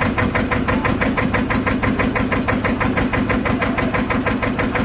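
Boat engine running with an even, rapid putter.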